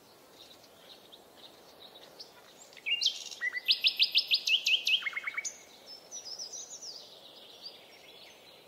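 Songbirds singing: a loud burst of fast, repeated chirps and a trill starting about three seconds in, with fainter scattered calls before and after.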